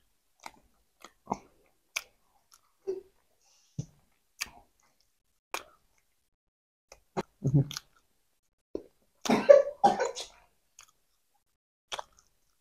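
People chewing soft, sugar-dusted jam doughnuts close to the microphone: scattered small mouth clicks and smacks. Two louder, longer mouth sounds come about seven and nine seconds in.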